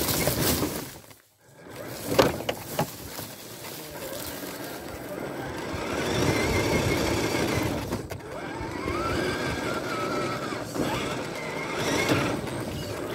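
An RC rock crawler's motor and gears whining as it drives, with its tires crunching over dry leaves, stones and dirt. A couple of sharp knocks come about two seconds in, and in the second half the whine rises in pitch, holds briefly, then drops back.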